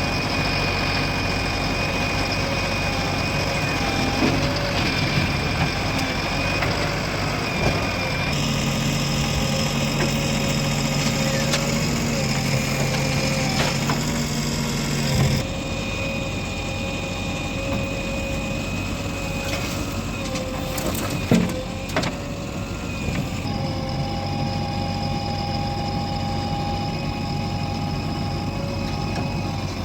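Diesel engines of a JCB 3DX backhoe loader and farm tractors running steadily at work, with a few short knocks about 21 seconds in.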